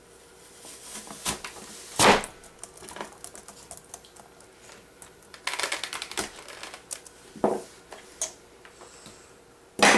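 Apples being cut by hand: scattered clicks and knocks, with a quick run of rapid cutting taps a little past halfway and heavier thumps about two seconds in and just before the end.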